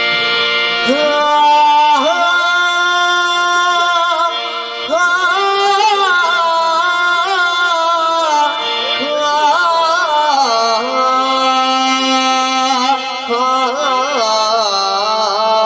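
A man singing a Punjabi folk song into a microphone in long, ornamented held phrases, over a harmonium playing sustained notes. The voice comes in about a second in, over the harmonium.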